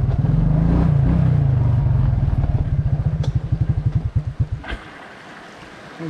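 Suzuki King Quad 300's single-cylinder four-stroke engine idling, then shut off: its firing slows into separate chugs and stops with a click about four and a half seconds in. The creek's gentle trickle is left.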